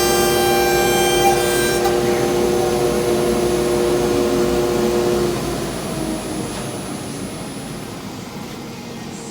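A high-speed power tool motor running with a steady whine, which stops about five seconds in and leaves a fading rush of noise.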